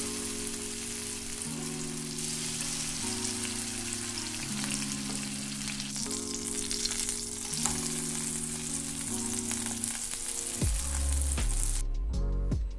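Seer fish (vanjaram) steaks shallow-frying in a little oil on a flat iron tawa over low heat, sizzling steadily, with background music of slow chord changes under it. The sizzle stops abruptly near the end as a bass beat comes in.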